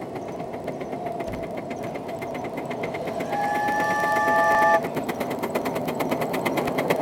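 7¼-inch gauge live steam locomotive hauling a passenger train, its exhaust beating in a quick, even rhythm that grows louder as it approaches. About three seconds in it sounds a chime whistle of several notes at once for about a second and a half.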